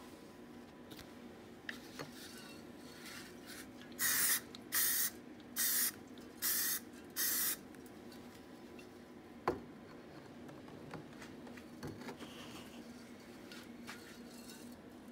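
Aerosol can of Krylon ColorMaxx gray primer spraying in five short hissing bursts of about half a second each, over a steady background hum. A single sharp click comes a couple of seconds after the last burst.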